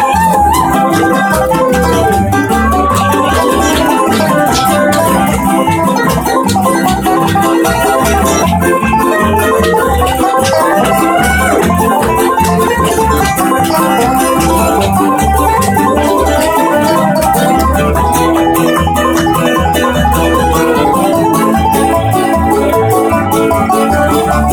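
Acoustic bluegrass band playing an instrumental passage: mandolin and five-string banjo picking over upright bass and acoustic guitar, with sliding steel-guitar notes.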